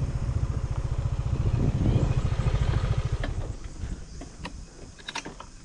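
Motor scooter engine running as the scooter slows and pulls over, then dying down about three seconds in, leaving a few light clicks.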